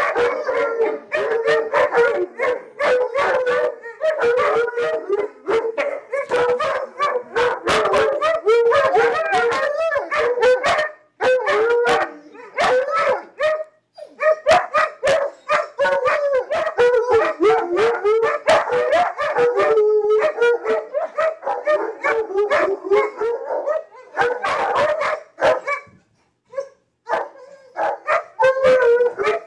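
Several husky-type dogs howling together in wavering, overlapping howls, broken by sharp barks and yips, with a few brief lulls.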